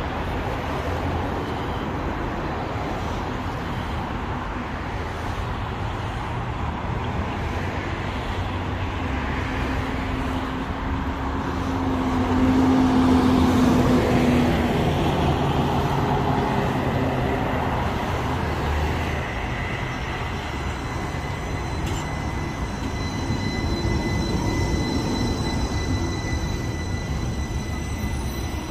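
Street traffic, with a truck passing about halfway through, then a CAF Urbos streetcar rolling up to the stop with a steady high whine over the last third.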